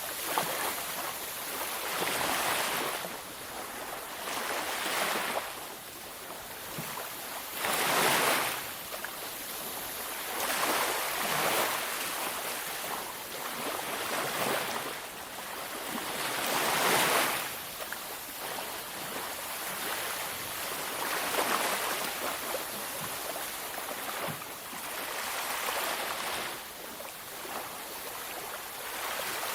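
Ocean waves breaking and washing onto a beach, swelling and falling every few seconds over a steady hiss of surf, with the loudest breakers about eight and seventeen seconds in.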